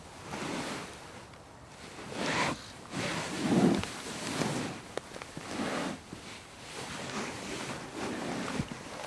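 A person shifting their weight on a couch: a series of soft fabric rustles and creaks from the cushions, with a few small clicks.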